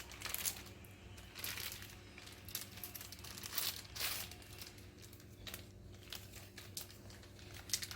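Plastic packaging being handled and pulled open by hand, crinkling and rustling in irregular bursts with some tearing.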